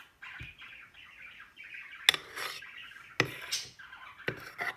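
Thick fluffy slime squelching and crackling as a metal spoon stirs and lifts it in a bowl. A few sharp clicks come from the spoon striking the bowl, about two and three seconds in and twice near the end.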